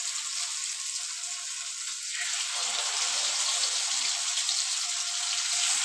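Marinated mackerel sizzling in hot coconut oil in a frying pan: a steady hiss that grows a little louder about two seconds in.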